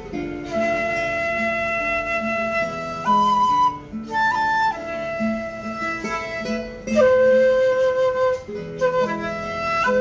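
Shakuhachi playing a slow melody in long held notes, over an acoustic guitar accompaniment.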